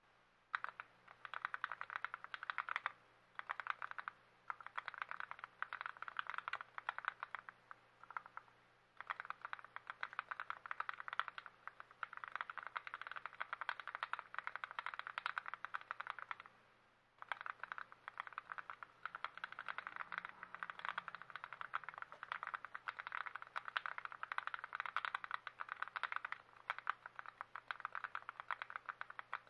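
Fast, continuous typing on a freshly lubed and assembled TX66 custom mechanical keyboard, a dense stream of key clacks with brief pauses about 3 and 4 seconds in, near 9 seconds and near 17 seconds.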